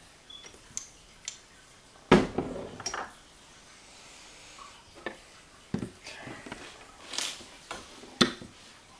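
Scattered metal clicks and clinks with a few sharper knocks, the loudest about two seconds in and another near the end: a lock and small metal tools being handled and set down on a hard surface as the lock is taken apart.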